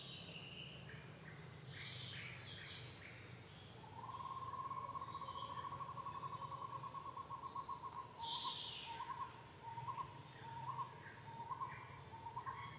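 Forest birds calling: scattered high chirps, then from about four seconds in a steady trilled call that, a few seconds later, breaks into short notes repeated about twice a second.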